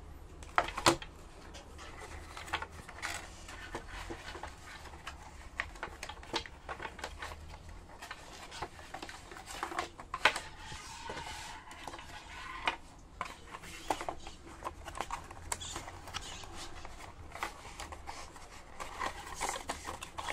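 Cardboard packaging being handled and folded open: irregular taps, knocks and scrapes of card, with the sharpest knocks about a second in and a longer rustle of card midway.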